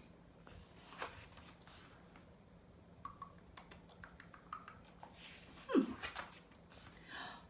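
Quiet pause with a few faint clicks and rustles, and one brief low sound that falls in pitch about six seconds in.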